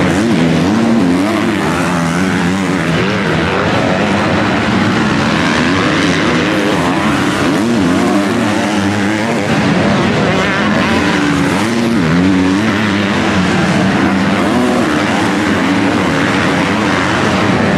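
MX2 motocross bike engines racing on the track, several at once, their revs rising and falling without a break as the bikes climb and corner.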